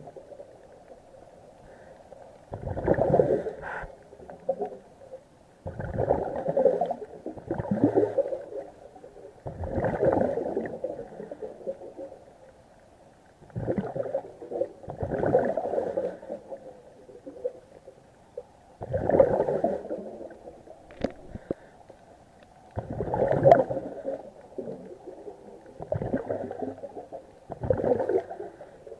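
Scuba diver breathing through a regulator underwater: a burst of bubbling, rumbling exhaust bubbles about every two to four seconds, each lasting about a second, with quiet between breaths.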